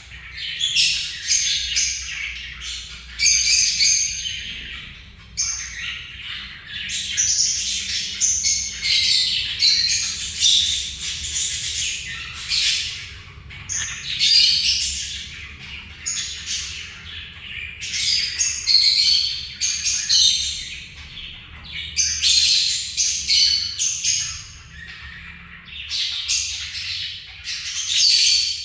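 Pet parrots, lovebirds and cockatiels, chattering and squawking nonstop in rapid overlapping bursts of shrill calls.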